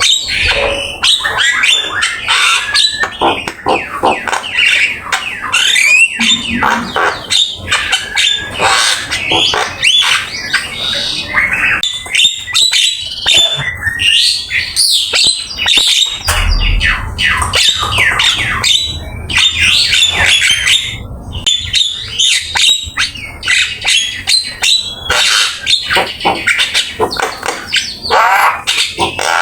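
Javan myna singing continuously, a dense unbroken run of harsh squawks, whistles and fast chattering phrases, with mimicked calls of other birds woven in.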